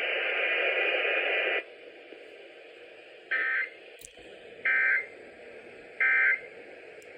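Weather radio audio: about a second and a half of radio hiss, then three short identical EAS/SAME data bursts, each about a third of a second and spaced about 1.3 s apart. These are the end-of-message code that closes the warning broadcast.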